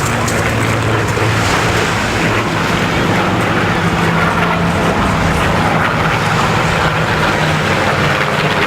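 Piston-engined warbird aircraft flying over, a steady engine drone whose pitch drifts slowly as they pass.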